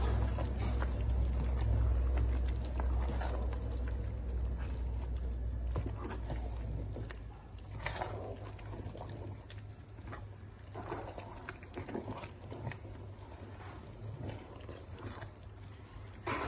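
Pot of oha soup simmering, with irregular bubbling pops and clicks over a low rumble that fades about halfway through. Near the end a wooden spoon stirs the pot.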